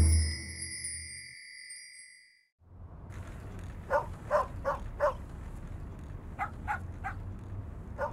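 A bright chime strikes and rings out, fading over about two and a half seconds. After a moment of quiet there is a steady low outdoor rumble, with a dog barking in quick runs of three or four short yaps.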